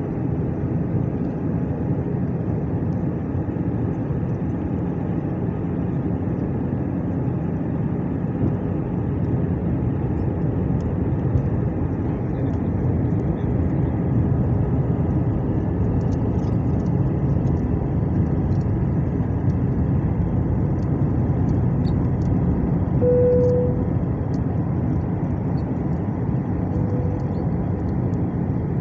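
Airbus A319 cabin noise heard from a window seat beside the wing engine: a steady, low rush of engine and airflow in flight. A brief tone sounds about 23 seconds in.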